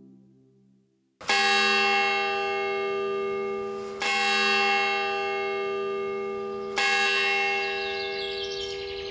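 A large bell tolling slowly: three strikes about three seconds apart, each ringing on and slowly fading.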